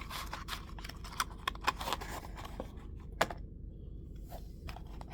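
Quick run of small clicks and taps from hands unwrapping and handling a pocketknife, thinning out after about three seconds.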